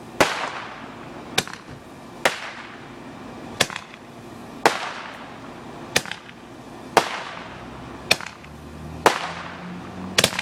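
Consumer firework going off in a string of about ten sharp bangs, roughly one a second, each trailed by a short fading hiss.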